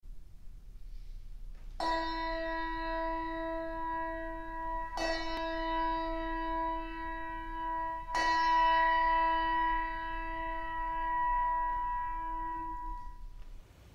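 A bell struck three times at the same pitch, about three seconds apart, each stroke ringing on and slowly fading; the last stroke dies away near the end.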